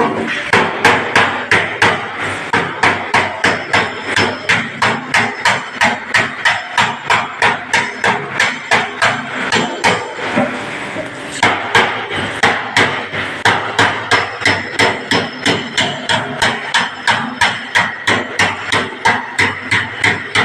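Panel-beating hammer striking a dented steel car panel over a dolly, sharp metallic blows in a steady rhythm of about three a second, with a short break about halfway through, as the dent is worked out.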